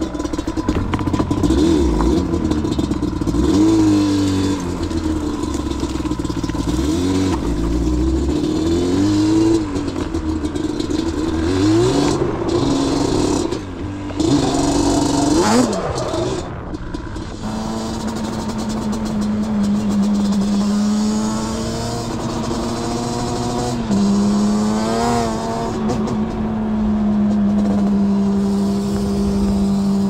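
Dirt-bike engines revving, their pitch rising and falling again and again with several revs overlapping. A little past halfway one engine settles to a steady pitch, with a couple of short blips.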